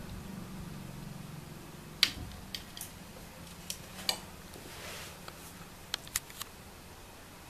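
A cat pawing and scrabbling at a plastic door stopper under a door: a scattered series of sharp clicks and knocks, the loudest about two seconds in, with a brief soft rustle near the middle.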